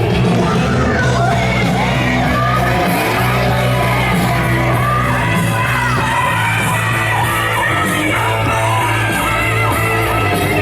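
Loud rock music playing, with voices yelling and shouting over it.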